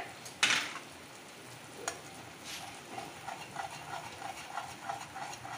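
Eggs sizzling lightly in a kadai of sauced, stir-fried vegetables. There is a sharp scrape about half a second in. From about three seconds in, a spatula scrapes and stirs the eggs against the pan at about four strokes a second.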